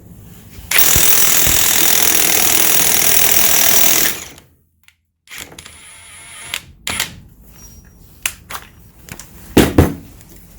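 Cordless impact wrench hammering in one steady burst of about three seconds, then stopping. A few knocks and clicks follow, the loudest near the end.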